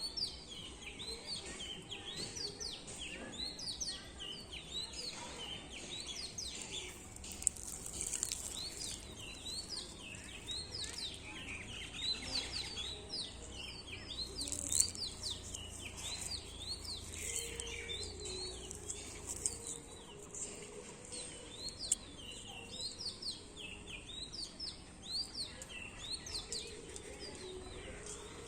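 Many small birds chirping together, a dense run of short, quick chirps overlapping without pause, with a couple of brief sharp clicks.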